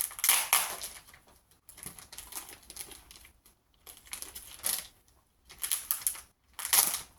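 Packaging being handled and rustled, in about five short crinkling bursts with pauses between.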